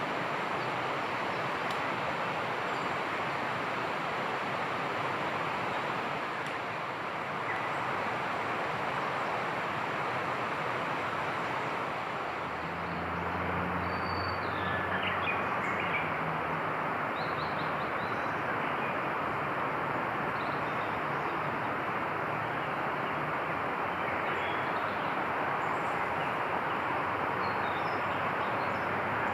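A steady rushing outdoor noise with a few faint bird chirps, a cluster about halfway through and more near the end. A low hum rises under it for a few seconds in the middle, then fades.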